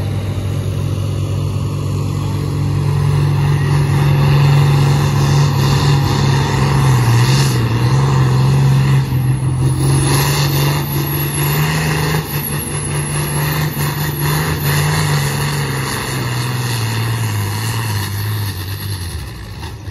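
New Holland TM120's diesel engine running hard at full throttle as it pulls a weight-transfer sled, with a high whine over it in the middle. Near the end the engine note drops and fades as the pull ends.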